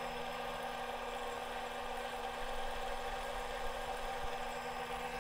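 Benchtop drill press running with a steady, even hum as a small bit drills into the punch-marked hole in a metal motor mounting plate.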